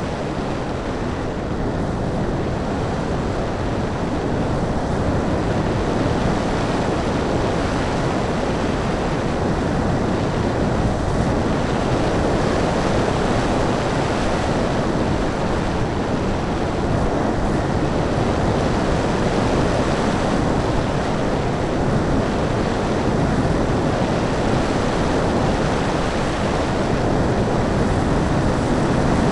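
Steady rushing wind noise of airflow over the onboard camera microphone of an RC hotliner in flight, growing a little louder near the end.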